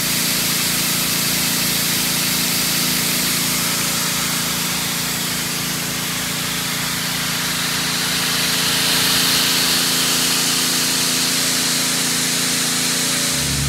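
John Deere 8400 tractor's engine running steadily under a loud, even rushing hiss of air from the John Deere 1990 air seeder's fan.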